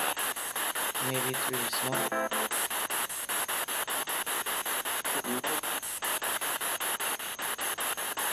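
Spirit box scanning through radio stations: hissing static chopped into rapid, regular pulses by the sweep. Brief snatches of radio voice and music break through about a second in, just after two seconds, and a little after five seconds.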